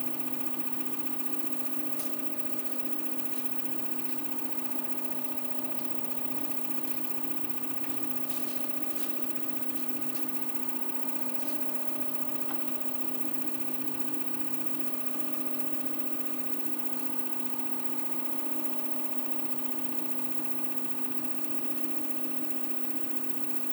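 Small CNC milling machine running an engraving pass, its motors giving a steady hum with a few faint ticks.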